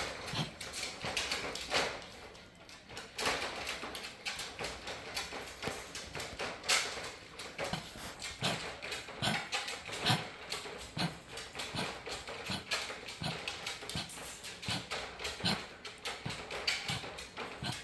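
A dog with kennel cough coughing repeatedly in short bursts, more regular, about one a second, in the second half.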